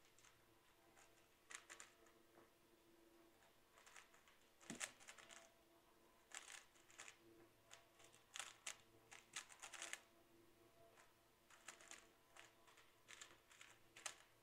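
Faint, sharp clicks in short irregular flurries, like typing, over a low steady room hum.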